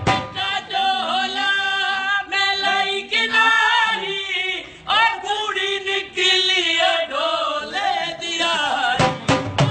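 Background music: a singing voice holding long, wavering, ornamented notes with no drums, and a drum beat coming back in near the end.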